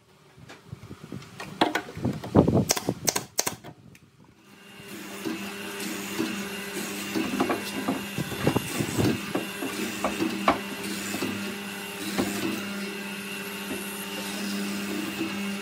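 A burst of sharp knocks and clacks as carved wooden altar parts are handled and fitted together. From about four and a half seconds in, a steady electric motor hum runs, with a few sharp taps on wood.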